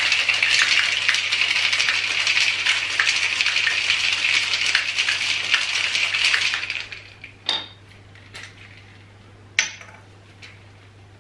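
Ice rattling hard inside a metal cocktail shaker being shaken, a fast dense rattle that stops about seven seconds in. After it come a few separate clinks and knocks as the shaker is set down and handled on the worktop.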